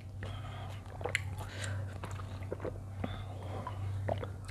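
Close-miked mouth sounds of a person eating and drinking: soft wet smacks and small clicks, scattered and irregular, over a steady low hum.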